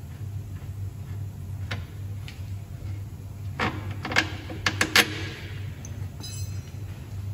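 Sharp metallic clinks and knocks of hand tools and bolts being handled on the suspension arm, bunched together about halfway through, over a steady low hum.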